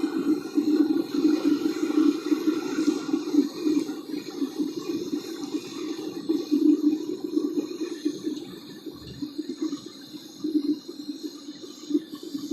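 Homemade aluminium melting furnace running: a steady rushing roar from its burner and air blast, wavering in strength and easing off a little toward the end.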